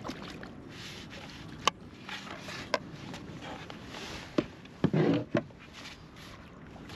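Knocks and clatters of gear being handled in a kayak as a plastic fish measuring board is stowed, with a few single knocks and a louder quick cluster of them about five seconds in, over a steady hiss of wind and water.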